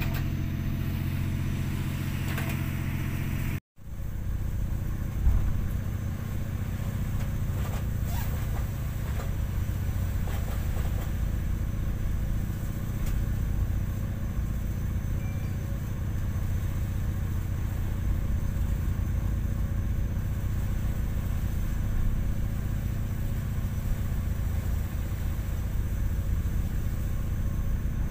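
Steady low drone of a ship's engine heard inside the wheelhouse, broken once by a brief gap about four seconds in.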